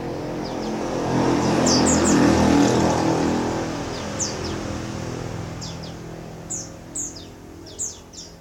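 A motor vehicle passes, its engine noise swelling to a peak about two to three seconds in and then fading. Over it, a female white-eye (pleci) gives short, high, downward-sliding chirps, which stand out more clearly near the end.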